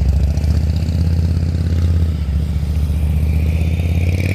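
Motor vehicle engine running loudly with a steady low rumble.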